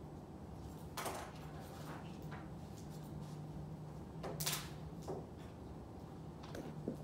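Quiet room tone with a steady low hum and a few brief scuffing noises; the loudest comes about four and a half seconds in.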